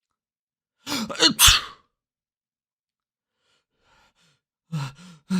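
A person sneezing: a short voiced 'ah-ah' build-up ends in a loud, sharp sneeze about a second and a half in. Near the end, quick voiced in-breaths start the build-up to another sneeze.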